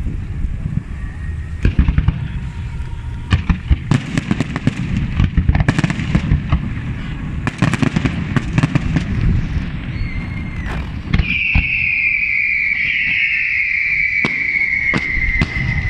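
Fireworks display: aerial shells going off in a rapid, irregular series of bangs and crackles over a low rumbling echo. In the last few seconds a loud high whistle slowly falls in pitch.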